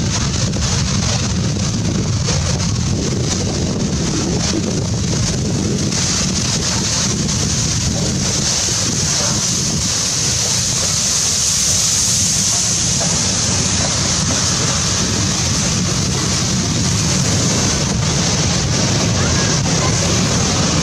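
P36 steam locomotive running slowly into the station and passing close by: a steady hiss of steam over the low rumble of the engine and its train rolling along the track. The hiss is loudest about ten to thirteen seconds in, as the locomotive goes past; wind is on the microphone.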